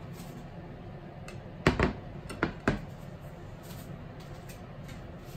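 Two ceramic plates set down on a kitchen countertop: four short knocks about two seconds in, over a steady low background hum.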